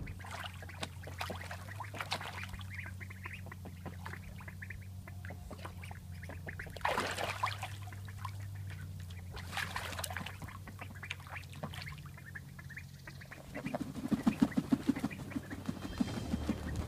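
Ducks quacking and splashing in a shallow plastic wading pool, with the loudest bursts about seven and ten seconds in. Near the end comes a quick run of flaps as a duck beats its wings.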